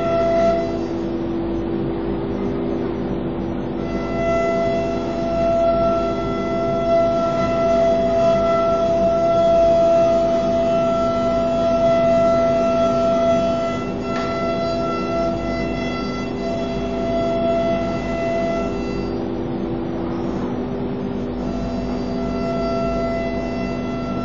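ATC CNC router machining a wooden panel: a steady mechanical whine with several high tones over the machine's running noise. The high whine fades out for a few seconds twice, soon after the start and about 19 seconds in, then comes back.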